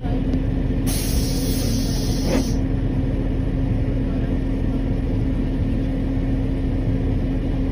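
Motor vehicle running with a steady low rumble and a constant hum. A brief hiss rises over it from about one to two and a half seconds in.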